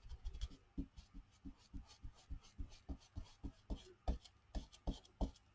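Soft, rhythmic dabbing of an ink applicator pouncing ink through a stencil onto a journal page, about three faint taps a second.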